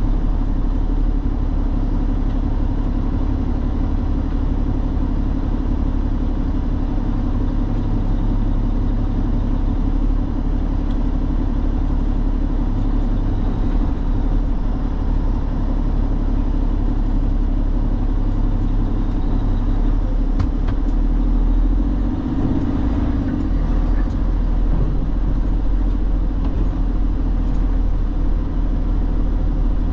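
A semi truck's diesel engine running steadily, a constant low drone that does not change much over the half-minute.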